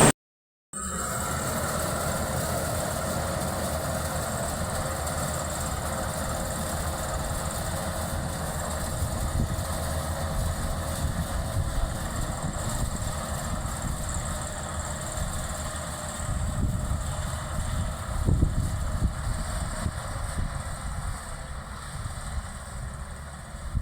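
Maxxi Bimo 102L rice combine harvester running steadily, a continuous engine and machinery drone with an uneven low rumble that gets rougher in the second half. It starts after a brief dropout at the very beginning.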